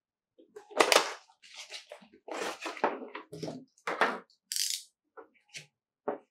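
Irregular household handling noises: a string of light knocks and clinks mixed with short crinkling or rustling, with brief pauses between them.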